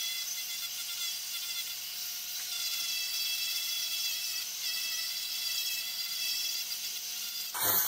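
Handheld rotary tool spinning a small sanding drum against a wooden branch piece: a steady high whine with the rasp of sanding, its pitch dipping briefly now and then as the wood is pressed on. A sudden louder noise comes in near the end.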